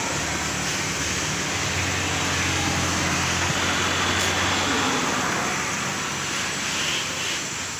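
A motor running steadily: a low hum under a broad rushing noise, a little louder in the middle and easing off near the end.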